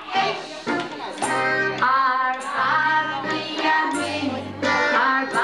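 A group of young children and women singing a song together over held low accompaniment notes that change about once a second.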